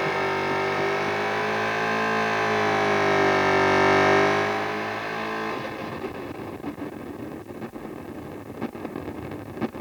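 Guitar played through a Wampler Ethereal delay and reverb pedal: a sustained, swelling wash of notes whose pitch slowly bends down and back up. About halfway through the wash stops, and quieter scratchy crackling with scattered clicks follows.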